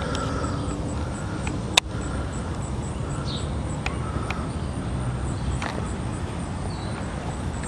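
Steady low rumble of handling and wind noise on a handheld camera's microphone as it is moved about, with one sharp loud click about two seconds in and a few fainter clicks.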